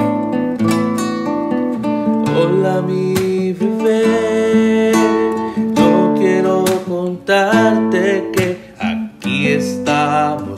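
Music led by strummed acoustic guitar.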